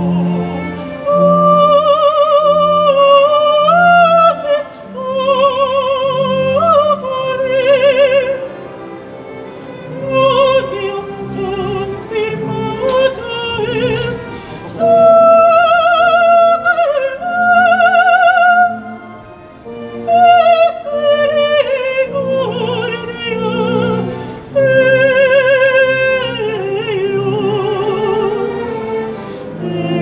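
Classical music: a solo operatic voice sings long held notes with wide vibrato over low, pulsing instrumental accompaniment.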